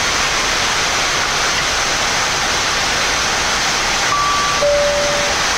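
Steady rushing background noise inside a Boeing 787 flight deck with both engines running. Near the end a two-note electronic chime sounds, a higher note followed by a lower one.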